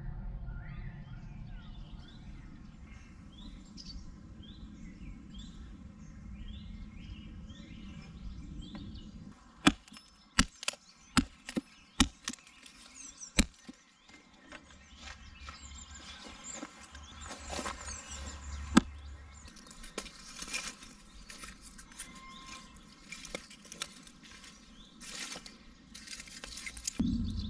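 Birds chirping repeatedly over a low outdoor rumble. Then a small hatchet splits kindling on a wooden chopping stump: a quick run of about eight sharp chops, and one more a few seconds later. After that, dry split wood and grass rustle and clack as they are stacked into a fire lay.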